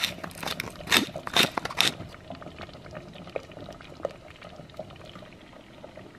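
Wooden spoon stirring a thick pureed soup in a pot. There are several loud wet slaps in the first two seconds, then quieter irregular small pops as the soup simmers.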